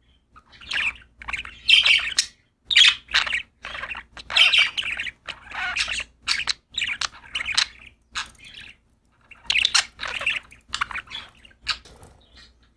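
Pet budgerigars chirping and chattering in a rapid run of short, warbling calls, thinning out near the end.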